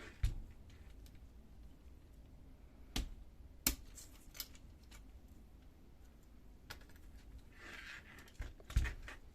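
Scattered sharp plastic clicks and knocks as a black end cap is pushed off the side of a laser printer's fuser unit and the unit is handled, with a brief scrape about eight seconds in.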